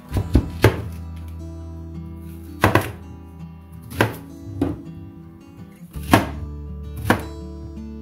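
Kitchen knife chopping a white onion into large chunks on a plastic cutting board: about seven sharp chops, irregularly spaced a second or so apart. Background music plays throughout.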